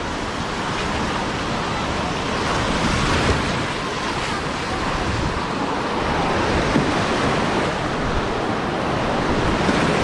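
Sea surf washing onto a beach, a steady rushing of waves.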